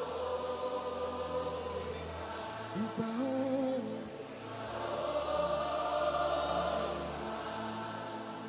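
Slow gospel worship music: a choir of voices singing long held notes over instrumental backing with held bass notes that change every few seconds, and one voice sliding up in pitch about three seconds in.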